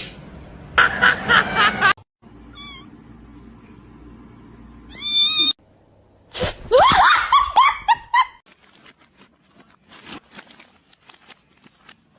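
Cats meowing in a run of short clips, with a rising call about five seconds in and a loud string of calls from about six and a half to eight seconds. Scattered clicks and knocks follow near the end.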